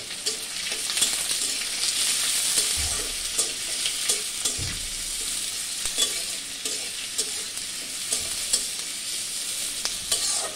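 Chopped onions sizzling in hot mustard oil in a metal karahi, stirred with a metal spatula that scrapes and taps against the pan again and again over a steady frying hiss.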